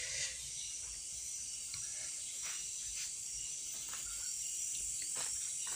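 Steady high chirring of night insects, with a few faint, light clicks scattered through it.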